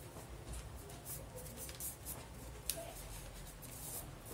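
Sheet of paper rustling and crinkling faintly as it is folded in half and creased by hand, with one sharper tick about two and a half seconds in.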